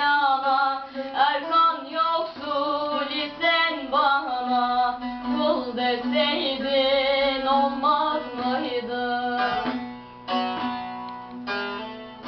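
A female voice singing a Turkish song over a plucked string instrument. The voice drops out about three quarters of the way through, leaving the plucked strings ringing on.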